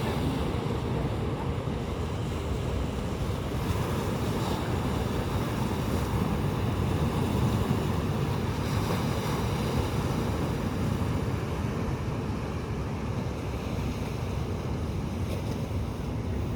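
Sea surf washing steadily onto a beach, with wind buffeting the microphone.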